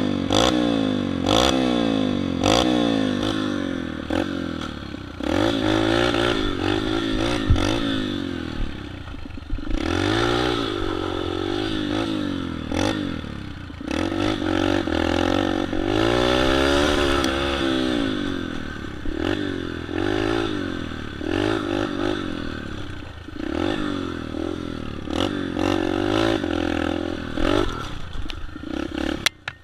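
Yamaha TT-R125 trail bike's small four-stroke single, with an FMF exhaust, revving up and easing off over and over as it is ridden over dirt, its pitch rising and falling every second or two. Some sharp knocks come in the first few seconds.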